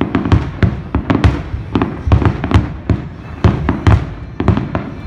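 Fireworks going off over water: a rapid, irregular string of sharp bangs, several a second, each followed by a low rumble.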